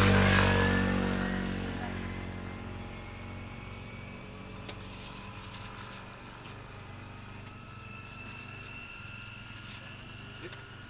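A motor vehicle passes close by, loudest at the very start and fading away over the next three seconds or so. A low, steady hum with a few light clicks follows.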